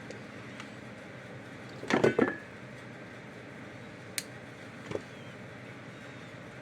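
Clatter of small hard objects being handled: a quick burst of clinks and knocks about two seconds in, then a single sharp click and a softer knock, over a steady low hiss.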